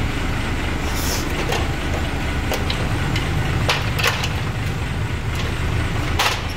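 A steady low mechanical rumble, with a handful of sharp clicks and knocks scattered through it.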